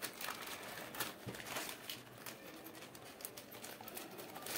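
Plastic courier mailer bag rustling and crinkling faintly as it is snipped open with scissors and handled, in short, scattered rustles and snips.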